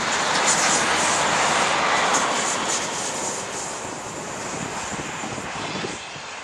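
First Great Western High Speed Train (InterCity 125) passing at speed, the rush of coaches and its rear class 43 diesel power car going away. It is loudest for the first two or three seconds, then fades as the train recedes, dropping again near the end.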